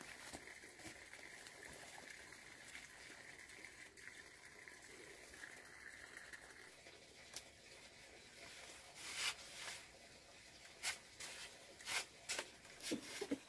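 Quiet background with a faint steady hiss, then a scattered run of soft clicks and rustles over the last few seconds.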